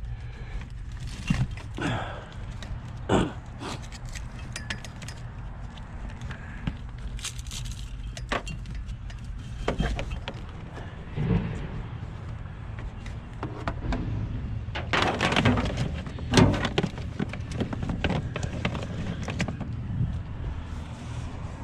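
Scattered knocks, clicks and clatter of electrical cords and scrap metal being handled and moved, with a cluster of louder knocks about fifteen to seventeen seconds in, over a steady low hum.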